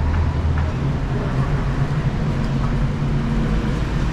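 Street traffic noise: a steady low engine rumble from a vehicle running close by, over a general haze of road noise.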